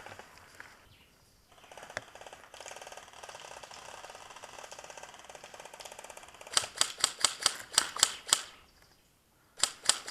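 Airsoft electric rifle (G&P M4A1) firing a quick string of single shots, each a sharp snapping click about four to five a second, then two more shots near the end. Before the shots, a few seconds of fast, fine mechanical clicking.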